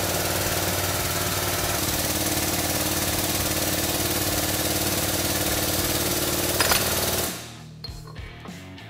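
Hydraulic shop press's powered pump running steadily while pressing a wheel bearing out of a bearing carrier knuckle. It cuts off suddenly about seven seconds in, with a sharp crack shortly before it stops.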